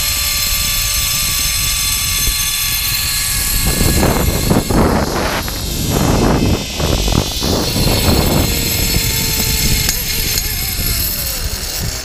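Zip-line trolley pulleys running along the steel cable with a steady high whine, under heavy wind rush on the microphone that buffets harder from about four seconds in. Near the end the whine falls in pitch and fades as the trolley slows at the landing platform.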